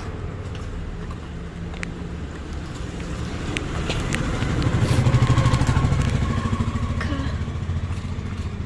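A motor vehicle's engine passes close by, growing louder to its peak about halfway through and then fading away.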